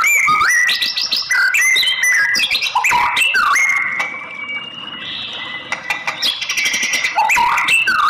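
White-rumped shama singing: a fast, varied run of rising whistled notes, held whistles and harsh chattering phrases, dipping quieter for a couple of seconds around the middle.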